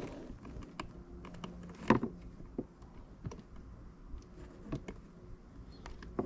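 Scattered light clicks and taps of small objects being handled, irregular and spaced out, with one louder knock about two seconds in.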